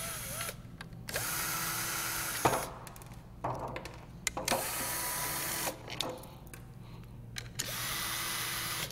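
Cordless drill/driver running in four spells of one to two seconds each, a steady motor whine, as it backs out the 5/16 screws holding the inlet shroud on a grinder pump. A sharp click comes about two and a half seconds in.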